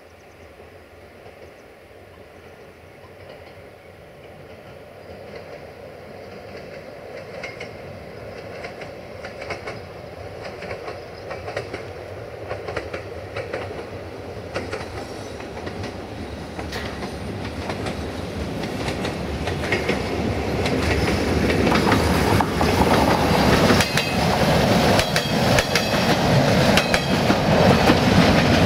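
Transferoviar Călători DH2 diesel multiple unit approaching from a distance and passing close, growing steadily louder throughout. Its wheels clack over rail joints from about halfway in, becoming loudest near the end as it goes by.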